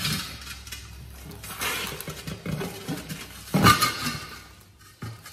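Rubber tractor-tread mower tire being worked by hand onto its wheel: scuffs of rubber and a few knocks, the loudest about three and a half seconds in.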